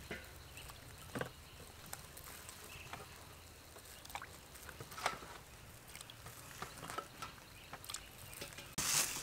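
Hands working jackfruit seeds in a steel bowl of water and pulling bulbs from a jackfruit: scattered soft clicks and light splashes. A louder rustle of handling sets in near the end.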